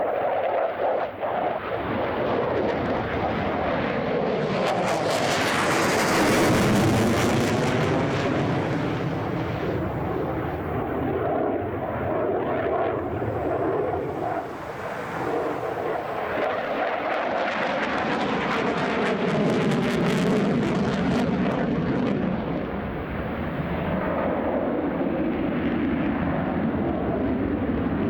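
MiG-35UB fighter's twin turbofan engines running at high power through a low display pass: a continuous loud jet noise that swells twice, about five seconds in and again around twenty seconds, with sweeping rises and falls in pitch as the jet passes and turns.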